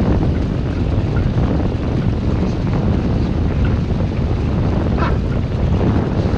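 Wind buffeting the microphone aboard a sailboat under way in a fresh breeze: a loud, steady, low rumble, with water rushing past the hull.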